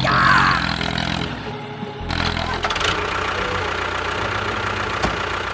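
A motor running with a steady drone that changes abruptly about two seconds in.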